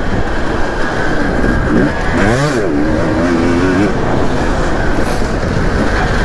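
Dirt bike engine running at riding speed close to the microphone, revving up and dropping back once about two seconds in, over a constant rush of wind and engine noise.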